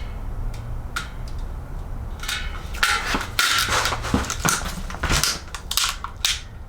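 Tubeless rim tape being pulled hard off its roll and stretched onto a mountain bike wheel rim: a few sharp clicks, then a series of crackling, rasping pulls, loudest about three seconds in.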